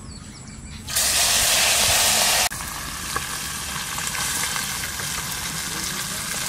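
Marinated tiny river fish dropped into hot oil with cumin seeds, hissing loudly as they hit the oil about a second in. The loud hiss cuts off suddenly and a steady frying sizzle follows, with occasional small pops.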